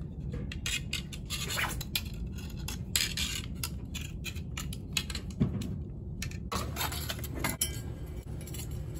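Thin metal wire being wound around a wooden stake and threaded through a cast iron skillet's handle hole: irregular, rapid clicks and scrapes of wire against wood and iron, over a steady low rumble.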